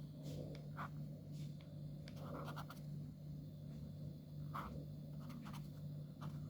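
Faint scratching of handwriting, a series of short irregular strokes, over a steady low electrical hum.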